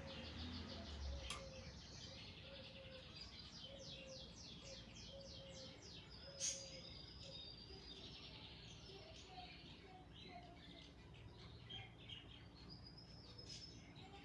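Faint birdsong: small birds chirping, with a fast run of rapid repeated chirps in the first half and scattered calls after, over a lower repeated note. A single sharp click about six and a half seconds in.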